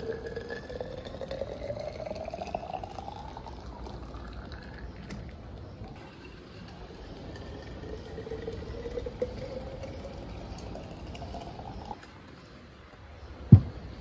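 Liquid poured from a ceramic teapot into glass bottles, the gurgle rising in pitch as each bottle fills, twice over. A single sharp thump near the end.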